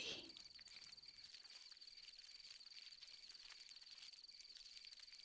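Crickets chirping faintly in a steady, fast-pulsing high trill.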